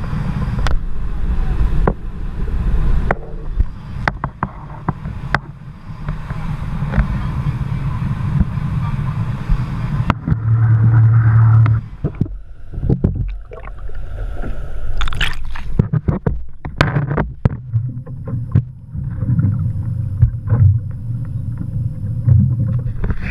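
A boat under way: a steady low engine and water rumble, with a stronger low hum for a couple of seconds near the middle and scattered knocks and clicks.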